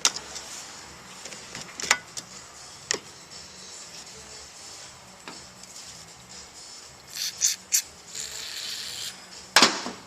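Hand work on a car seat: several sharp clicks and knocks of tools and parts, with short bursts of rubbing or scraping near the end and a loud knock just before it ends.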